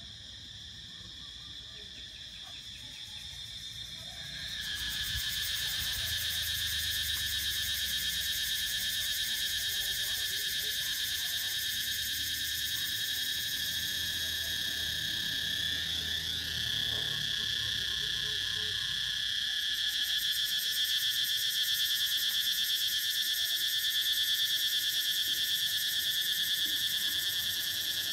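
A chorus of insects trilling steadily at a high pitch, which swells louder about four seconds in.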